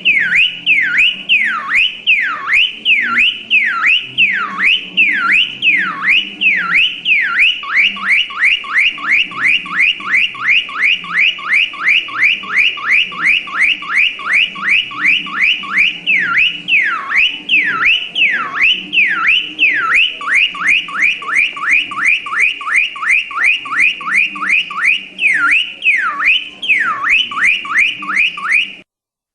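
Electronic car alarm siren cycling through its tones. A whistle wails slowly up and down about once a second, then switches to quick chirping sweeps about three a second, then back again. It cuts off suddenly near the end.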